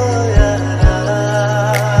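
Background music: a gliding melody over held bass notes and a regular low drum beat.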